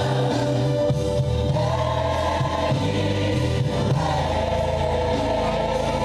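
Recorded gospel choir song: a choir sings long held notes over a steady bass line.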